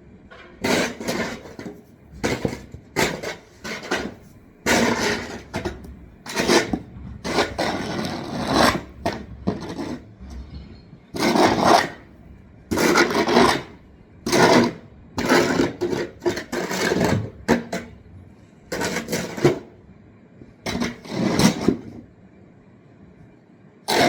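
Repeated gritty scraping strokes, about fifteen in irregular rhythm, each under a second long.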